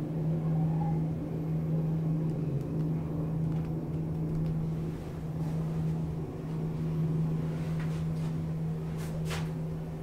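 KONE MonoSpace elevator with an EcoDisc drive travelling upward, a steady low hum in the car from start to stop of the ride, with a brief noise near the end.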